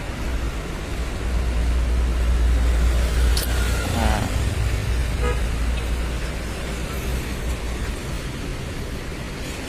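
Hino RM280 bus's diesel engine idling with a steady low rumble that eases a little near the end. About three and a half seconds in there is a sharp click, then a brief pitched toot.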